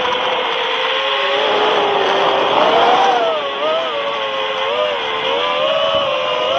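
FPV quadcopter's motors and propellers whining, heard close from the onboard camera. The pitch wavers up and down as the throttle changes, and a rush of air builds around two to three seconds in, as the pitch rises.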